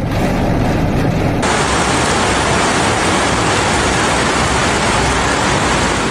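Heavy rainstorm and rushing floodwater: a loud, steady rush of noise that turns brighter and hissier about a second and a half in.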